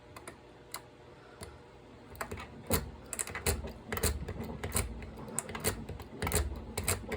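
Metal lock pick zipping and raking across the pin stack of a padlock held under tension: rapid, irregular small clicks and scrapes, sparse at first and coming thick and fast from about two seconds in.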